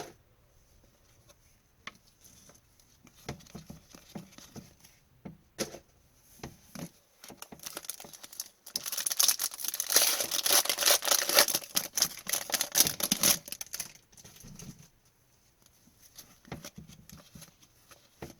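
Hockey card packs being handled: scattered light clicks and rustles of cards, with about five seconds of louder tearing and crinkling of a pack wrapper in the middle.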